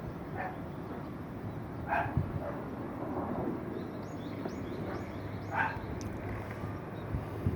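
Common kestrel chick calling: three short, harsh cries spread a couple of seconds apart, with a quick run of faint high chirps between the last two.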